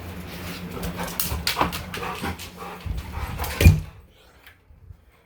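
Excited bird dog making short snorting noises, with a sharper knock about three and a half seconds in, then quiet for the last second or so. The owner puts the snorting down to the e-collar still being on the dog.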